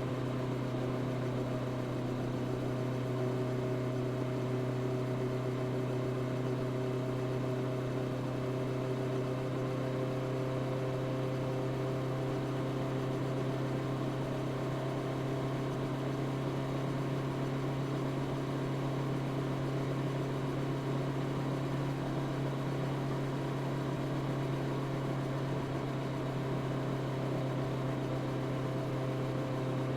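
Honda CB650R's inline-four engine, on its stock exhaust, running at steady revs while the motorcycle cruises, with a constant engine tone and some rushing noise over it.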